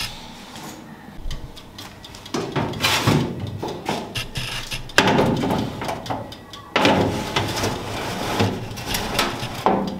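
Countertop toaster oven being loaded: its door swung open and its wire rack slid and set down, metal scraping and rattling with sharp clacks in three bursts starting about two seconds in.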